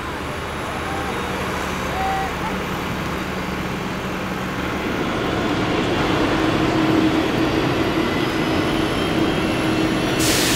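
Carrier flight-deck machinery noise from jet aircraft and deck vehicles: a steady rumble and engine whine that grows louder, with a higher steady whine joining about six seconds in. A short burst of hiss comes near the end.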